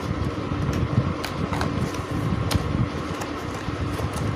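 A cardboard keyboard box being opened and its contents handled: scattered light clicks and rustles at irregular moments, over a steady low background hum.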